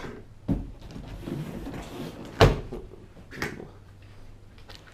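Cardboard shipping box being handled and pried open: a few knocks and thumps with rustling between them, the loudest thump about two and a half seconds in.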